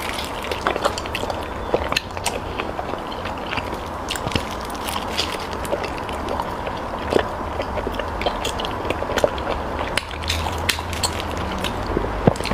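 Close-miked eating sounds: irregular wet mouth clicks and smacks of someone chewing and biting soft food.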